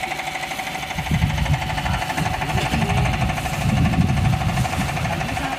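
Single-cylinder Tianli 1130 diesel engine of a wooden boat running steadily with a fast, even chugging knock.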